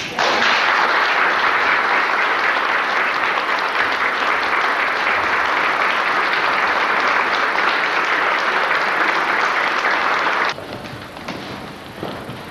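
Audience applauding: dense, steady clapping that starts at once and breaks off about ten seconds in.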